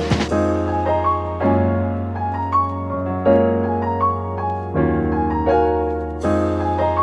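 Background music: a piano playing slow, held chords that change about every second and a half, with a few higher notes on top.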